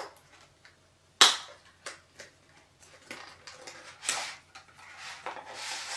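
A stylus pen's small box and packaging insert being handled: one sharp snap about a second in, a few lighter clicks, then rustling and scraping as the contents are worked out of the box.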